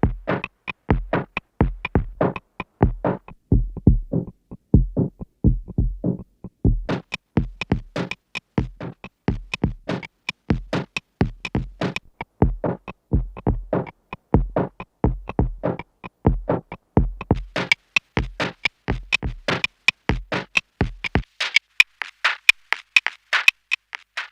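Drum machine beat played through a Chase Bliss Generation Loss MKII tape-emulation pedal. About three seconds in the treble is cut away, leaving a muffled beat for a few seconds before the top end returns. Near the end the kick and low end drop out, leaving a thin beat as the pedal's filtering cuts it heavily.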